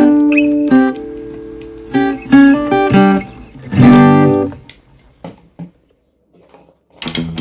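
Background music of plucked acoustic guitar notes. It dies away about four and a half seconds in, goes almost silent, and starts again near the end.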